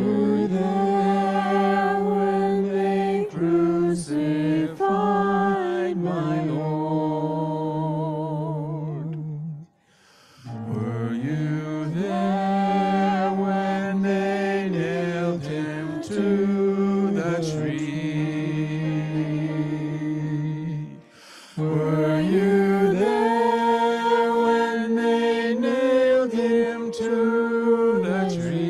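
Voices singing a slow sacred song in long held phrases, with two brief pauses between phrases, about ten and twenty-one seconds in.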